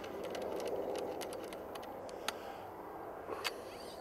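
Choke key screwing an improved-cylinder choke tube into the muzzle of a semi-automatic shotgun: a run of faint metallic ticks and scrapes, thinning out after about two seconds.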